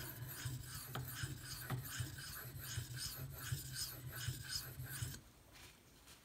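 Knife blade in 154CM steel (Bark River Bravo EDC) drawn in single strokes across a 10,000-grit Pride Abrasive polishing stone: a repeated soft scraping, about two or three strokes a second, that stops about five seconds in.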